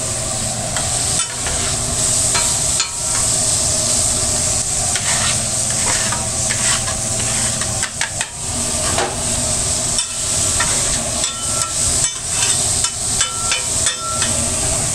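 Steel spatulas scraping and clacking on a flat-top griddle in quick, irregular strokes, with flank steak strips sizzling underneath. A steady low hum runs beneath.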